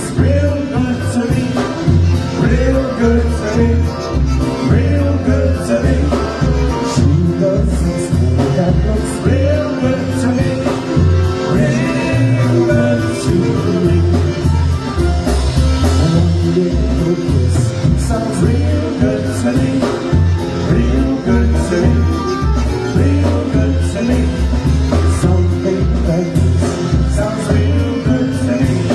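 Live polka band playing a song with a singer, over a walking bass line and a steady beat.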